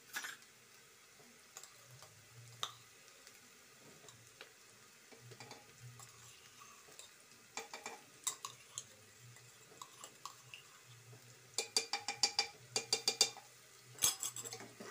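Stainless-steel kitchen utensils clinking against each other: a few scattered clinks, then a quick run of metal taps about three-quarters of the way in and another brief cluster just before the end. Faint sizzling of onions frying in oil sits underneath.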